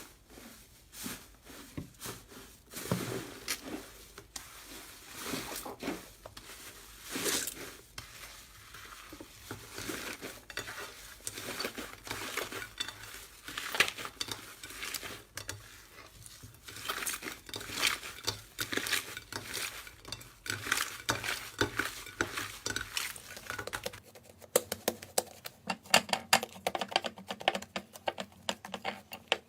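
Slime being squeezed, poked and stretched by hand, making a continuous run of small sticky clicks and crackles. About 24 s in the background changes and the clicks turn sharper and quicker.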